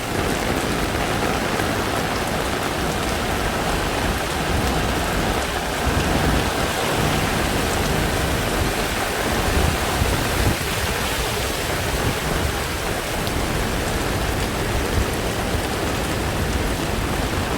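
Heavy rain pouring down steadily onto a flooded street, with a low rumble underneath.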